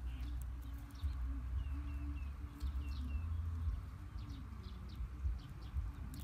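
Outdoor ambience: wind rumbling on the microphone, with a small bird chirping five quick short notes near the middle, and a few light scattered ticks.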